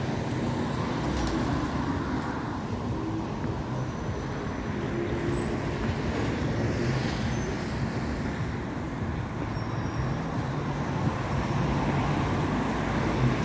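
Road traffic: vehicle engines running and tyres on the road, a steady even hum with no single vehicle standing out.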